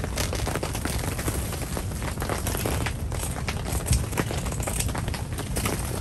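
Scissors snipping and tent fabric crinkling as a hole is cut in a tent's chimney panel: many small irregular clicks and crackles over a steady low rumble.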